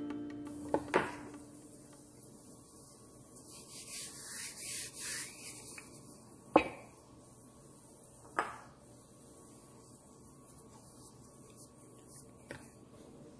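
Hands working flour and dough on a wooden cutting board: soft rubbing and brushing for a couple of seconds near the middle. A few short knocks on the wood come about a second in, after six seconds (the loudest) and after eight seconds.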